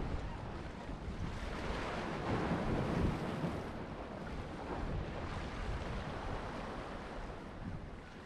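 Small waves washing against jetty rocks, with wind buffeting the microphone. The surf swells a little about two to three seconds in.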